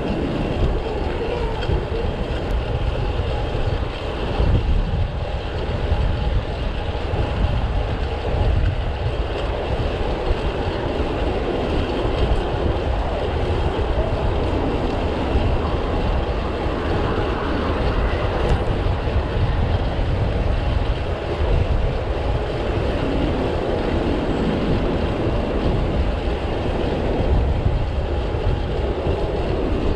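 Wind rushing over the microphone and road noise from riding a bicycle fast through city traffic, a steady loud rumble throughout.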